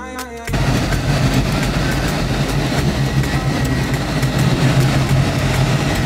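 Car engine running and wind rushing while riding along, a steady low hum under an even noise. Music cuts off about half a second in.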